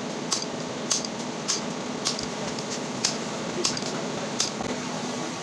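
A new ball bearing is being driven onto the donkey pump's motor shaft with a metal pipe drift, giving about seven sharp metal-on-metal taps that stop shortly before the end.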